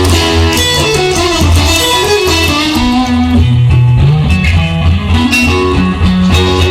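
Rock song's instrumental passage: electric guitar playing over a steady bass line, with no singing.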